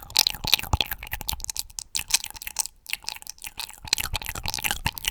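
Close-miked ASMR mouth sounds: a rapid, irregular run of wet clicks and smacks.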